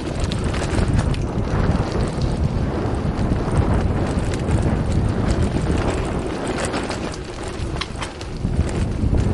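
Wind buffeting the camera microphone while a mountain bike rolls over a gravel road, with tyres crunching on loose stones and scattered clicks and rattles from the bike.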